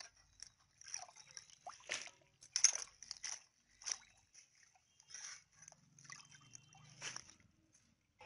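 Hands swishing and rubbing chopped spinach in a basin of water to wash it: irregular sloshing and splashing, with one louder splash a little over two seconds in.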